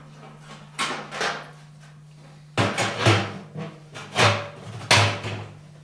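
Sheet-metal stovepipe filter tube knocking and scraping against a steel barrel as it is lowered and slid down inside. Six clunks and rasps come in irregular succession, over a steady low hum.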